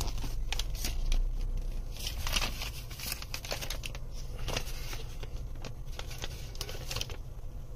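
A folded paper instruction leaflet being unfolded and handled, crinkling and rustling in a run of short bursts that stop about seven seconds in. A low steady hum runs underneath.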